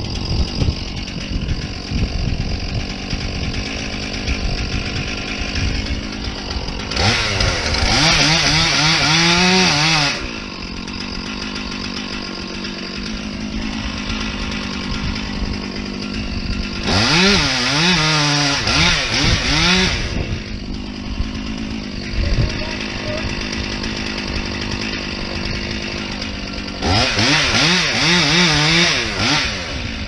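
Gas chainsaw running at a steady idle, revved to full throttle three times for about three seconds each, about ten seconds apart, as it cuts into the trunk of a standing tree being felled.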